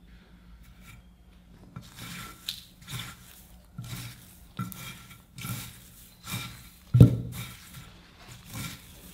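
Gloved hand pressing and patting a marinated chicken wing into dry bread crumbs in a glass dish: crunchy rustling in short strokes about once a second, starting about two seconds in, with one louder thump about seven seconds in.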